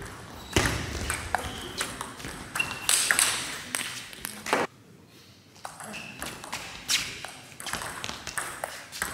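Table tennis rally: the ball clicking sharply off the players' bats and bouncing on the table in a quick run of hits, with a brief lull about halfway through.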